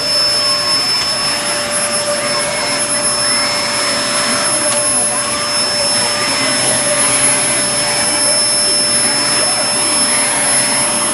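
Vacuum cleaner running steadily: a loud, continuous rushing noise with a constant high whine.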